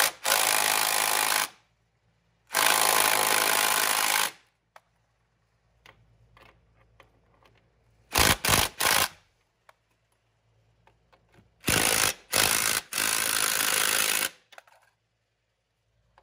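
Cordless power driver spinning a socket on a bolt, run in bursts: two runs of a second or two each, a couple of quick blips about eight seconds in, then a longer run with a short break near the end.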